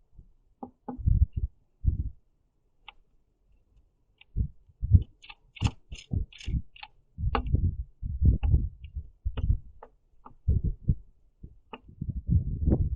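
House sparrow feeding on a platform feeder, close to the microphone: irregular low knocks and taps as it pecks at sunflower seeds and hops on the platform. A quick run of short, high peeps comes about five to seven seconds in.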